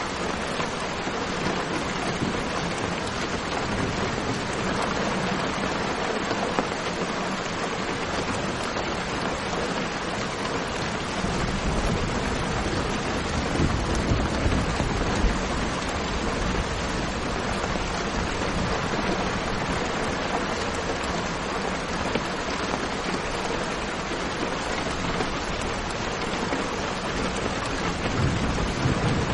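Steady rain falling, an even hiss, with a low rumble that swells about halfway through and again near the end.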